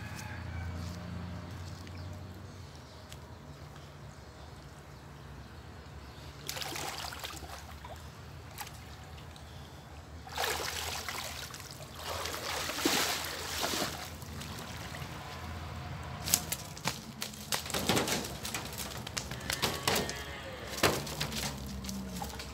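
Pond water sloshing and splashing as a person wades and grabs a fish by hand, with bursts of splashing, the longest and loudest about halfway through. Sharp slaps and knocks follow in the last few seconds.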